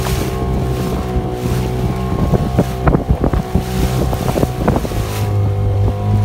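Small fibreglass boat's motor running steadily under way, with the hull knocking and splashing through the waves. Wind buffets the microphone.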